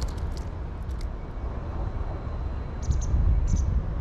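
Outdoor ambience: a steady low rumble with a few short, high chirps, the strongest about three seconds in.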